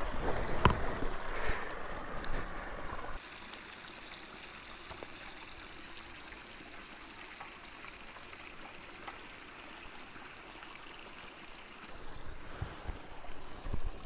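Steady rushing noise with a sharp knock about a second in. After about three seconds it drops abruptly to a faint steady hiss, and low knocks and rustling come back near the end.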